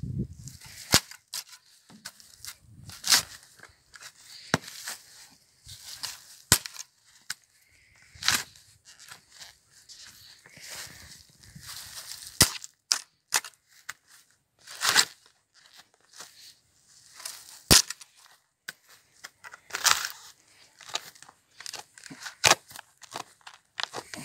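Steel garden spade digging and turning soil: the blade is driven in, scrapes and cuts through the earth, and clods crumble and fall. Sharp clicks and scrapes come irregularly, every one to three seconds.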